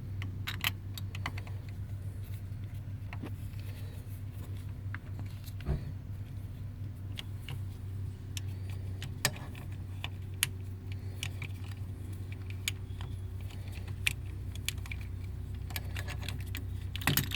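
Wrench and metal tools clinking and tapping now and then against a hex bolt on a 1970 VW van's brake assembly, with small clusters of clinks right at the start and just before the end. A steady low hum runs underneath.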